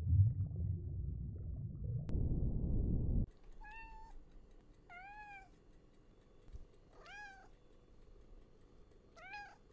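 A low rumbling noise that cuts off about three seconds in, then a domestic tabby-and-white cat meowing four times, about every two seconds. Each meow is short and rises then falls in pitch.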